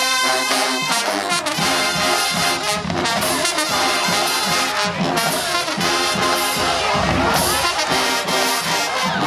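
Marching band playing a brass-heavy tune, trumpets and trombones over drums.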